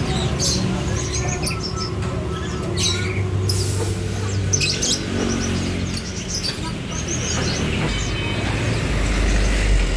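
Many caged small songbirds chirping and twittering in short, scattered calls, over a steady low background rumble.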